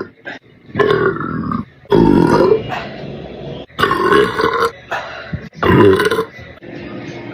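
A woman belching over and over: a string of about five long, rumbling burps, each lasting around a second, with short breaks between them.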